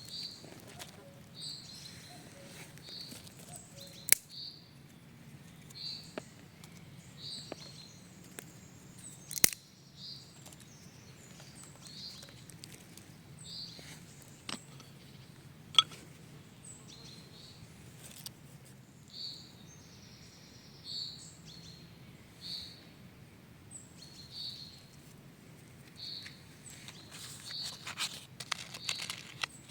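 A bird repeating a short high chirp roughly once a second, pausing now and then, over a faint steady forest background. Three sharp clicks stand out as the loudest sounds, spread through the middle.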